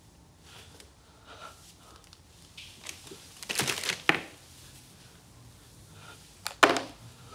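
Crisp packet crinkling in a hand: faint rustles, then a longer crinkle about halfway through and a short sharp one near the end.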